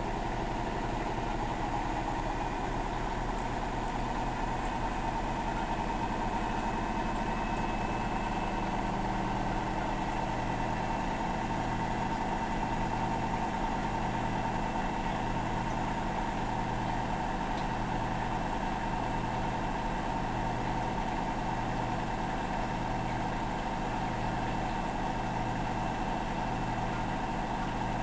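Hotpoint 10 kg inverter-motor washing machine running steadily in its final spin, a constant motor hum and whine. From about ten seconds in a low pulse repeats about every second and a quarter.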